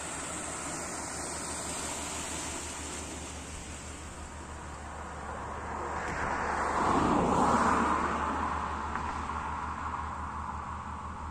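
Motor barge passing below: a low steady engine drone under the rush of water along the hull. The rushing swells louder for a few seconds around the middle.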